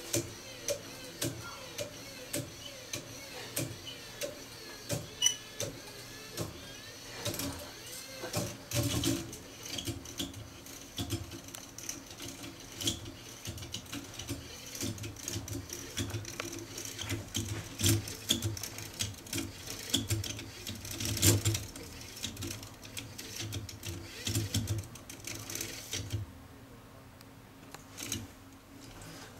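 Electric motor of a homemade pendulum-control rig whirring and clattering as it drives the pendulum under feedback control, with many irregular clicks and knocks from the mechanism. It quietens for a couple of seconds near the end.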